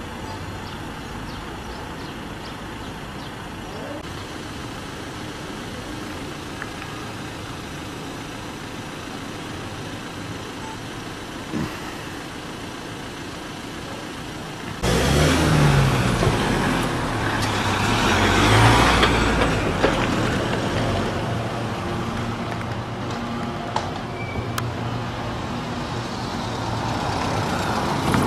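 Road traffic: a steady outdoor hum, then about halfway through a sudden, much louder heavy vehicle engine running close by. The engine swells to a peak a few seconds later and stays loud.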